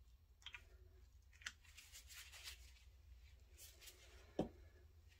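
Near silence: room tone with a few faint light clicks, and a soft knock a little after four seconds in.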